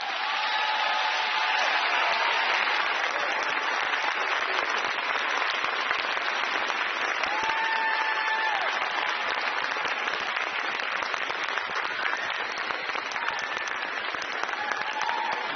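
Large arena audience applauding steadily at the end of a figure-skating routine.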